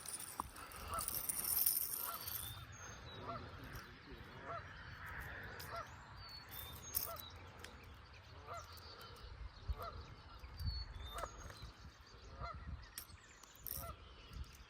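Geese honking, a short call repeated about once a second, fairly quiet.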